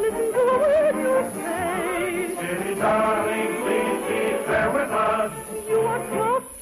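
Singing with vibrato over orchestral accompaniment, with several voices together, from a 1950 radio broadcast recording; the music dips briefly near the end.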